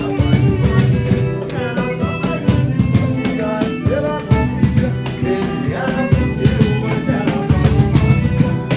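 A live band plays an instrumental passage: a melody that slides between notes over a steady bass and drum beat.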